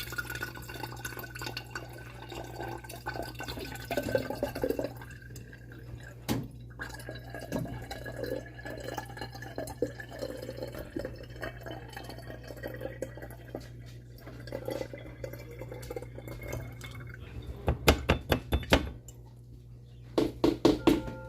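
Forsythia tea being strained into a glass mason jar: liquid trickling and dripping, with a faint ringing tone that rises slowly in pitch as the jar fills. Near the end come two quick runs of sharp clinks and taps.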